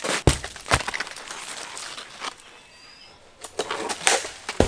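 Heavy jackfruits thudding onto dry earth, two sharp thuds near the start and a heavier one near the end, with a stretch of rustling and crackling of leaves and branches before the last.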